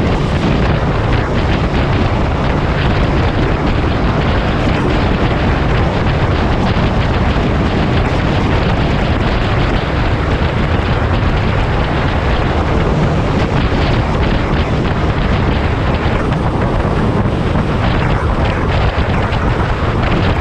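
Loud, steady wind rush on the microphone of a GoPro on a motorcycle riding at highway speed, with the bike's engine and tyre noise under it.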